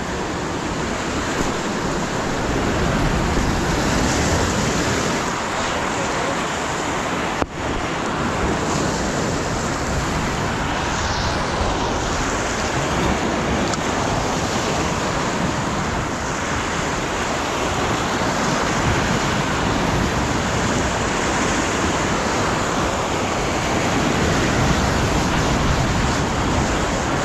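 Sea surf washing and breaking against jetty rocks, a steady rushing noise, mixed with wind on the microphone.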